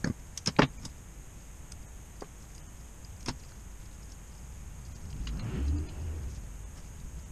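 Sharp metallic clicks as piston rings are spread and fitted onto an air-compressor piston by hand, with the loudest pair of clicks about half a second in and another near the middle. A low rumble comes between about five and six seconds in.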